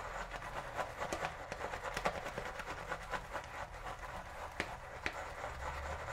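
Shave brush swirling soap lather in a lathering bowl with nubs on its floor: a steady wet swishing with many small crackles and clicks as the lather is whipped up, the lather just starting to build from the first half teaspoon of water.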